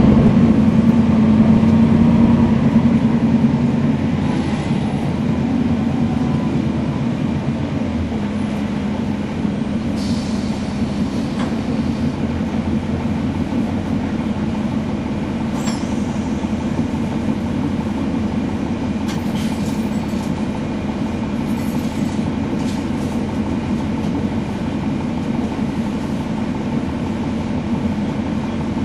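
Cummins ISL9 diesel engine and ZF Ecolife automatic driveline of a NABI 40-foot transit bus, heard from the back seat inside. It runs loud for the first few seconds with a droning note that slowly falls in pitch, then settles to a quieter, steady drone with a few faint rattles.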